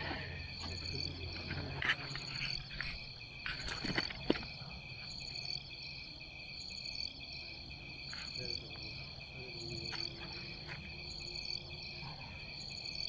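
Insects chirping steadily in a chorus at several high pitches, with a few sharp clicks and a knock about two to four seconds in.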